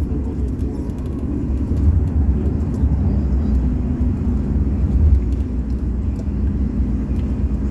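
A steady low rumble, with faint scattered clicks of a Rubik's cube's layers being turned by hand.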